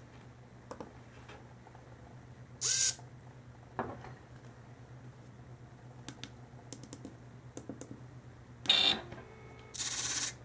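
Small tactile push buttons clicking as a code is keyed in, with three short whirring bursts from a metal-gear digital micro servo swinging its horn: one about three seconds in, and two close together near the end, the last about half a second long.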